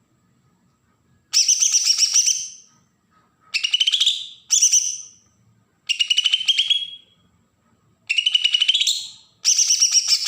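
Cucak ijo (green leafbird) giving its harsh 'besetan' call: six loud, rapid stuttering bursts of about a second each, some rising in pitch, with short pauses between.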